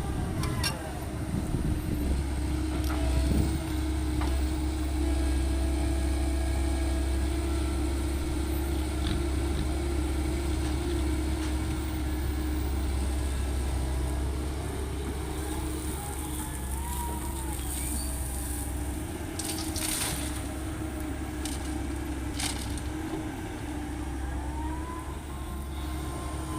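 Heavy diesel machinery running steadily, with a strong low drone and a few sharp knocks in the second half. Short whines rise and fall twice near the end.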